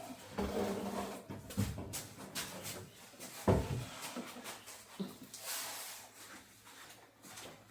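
Irregular knocks, bumps and rubbing of objects being handled, with the loudest bump about three and a half seconds in.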